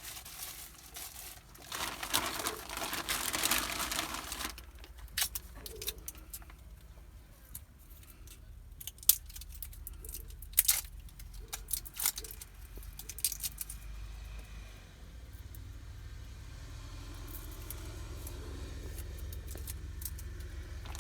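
Plastic wrapper crinkling and rustling for a couple of seconds as a small electronic device is wrapped, followed by scattered sharp clicks and knocks of handling. A low steady rumble builds in the second half.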